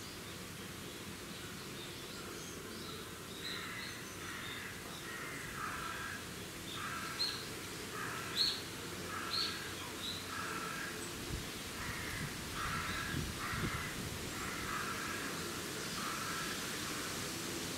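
Animal calls: a long run of short, pitched calls, about two a second, beginning a few seconds in and going on nearly to the end, over a steady background hum.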